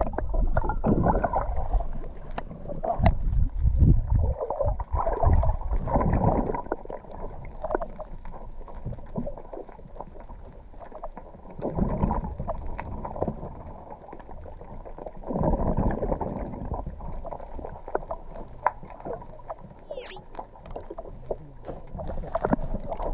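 Muffled underwater water noise picked up through a GoPro's waterproof housing: water rushing and gurgling around the camera in uneven surges, strongest in the first few seconds and again about twelve and sixteen seconds in, with a few faint clicks.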